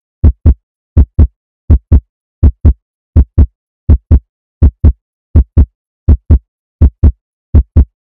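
Heartbeat sound effect: a steady lub-dub double thump about every three-quarters of a second, with silence between.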